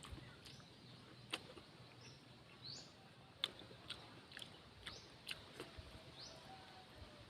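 Faint close-up eating sounds, scattered sharp clicks of chewing and lip smacks, with a few short rising bird chirps in the background.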